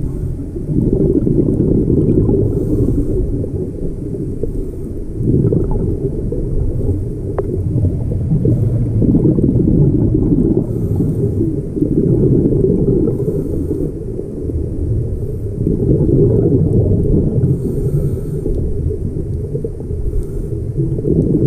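Scuba diver's regulator breathing, heard muffled through an underwater camera housing: rumbling bursts of exhaled bubbles that swell and fade every few seconds, with a faint hiss between some of them.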